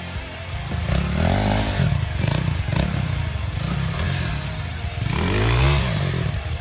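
Fantom prototype trials motorcycle's 190cc four-stroke engine revving up and down in bursts as the bike is ridden over rough ground. The loudest rev comes near the end as the front wheel lifts.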